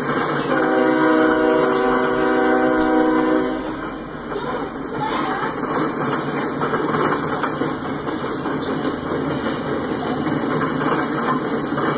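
Freight train of empty centerbeam flatcars rolling past on the rails. A train horn sounds one steady blast of about three seconds near the start.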